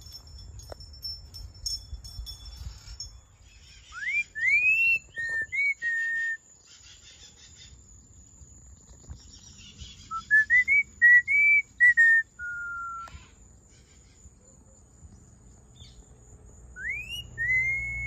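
Hawk-headed parrot whistling three short phrases a few seconds apart, each made of clear rising glides followed by level held notes, over a steady faint high-pitched buzz.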